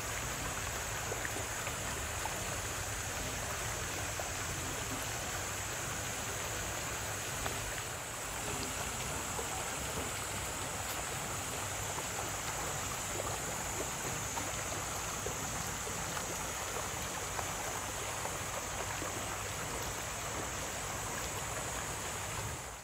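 Steady rush of running water in a penguin pool.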